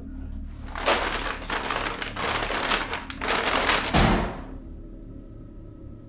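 Loud rattling noise from about one second in, ending in a heavy thud a little after four seconds, over a low dark ambient music drone.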